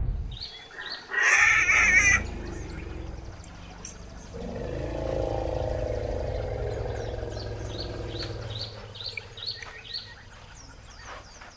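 Baby elephant giving a short, high, wavering scream about a second in, then a longer, lower call from about four to eight seconds, with birds chirping in the background.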